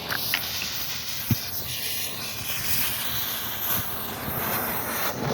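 Smoke ball firework burning with a steady hiss that cuts off suddenly near the end, with a single small knock about a second in.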